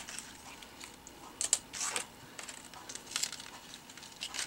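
Thin gold mirror cardstock and washi tape crinkling and crackling in the hands as die-cut shapes and metal dies are freed from the sheet: a few short rustles, about one and a half, two and three seconds in.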